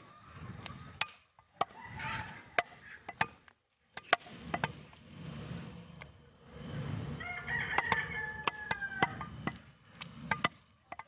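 A heavy cleaver chopping beef on a wooden stump block: sharp, irregular chops, one or two a second. About two-thirds of the way through, a long animal call with a wavering pitch lasts about two seconds over the chopping.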